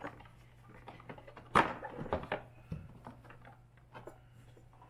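Handling knocks and clicks from working on a plastic fender with tools, the loudest a sharp clatter about a second and a half in, over a low steady hum.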